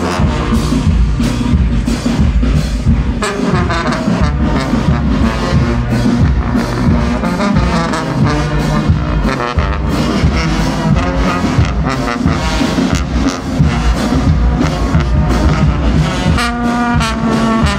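Brass band playing, led by low brass of tubas and euphoniums, with a steady beat.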